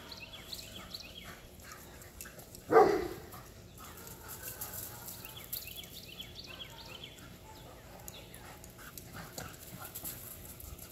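A dog barks once, loud and sharp, just under three seconds in, while the dogs chase each other in play.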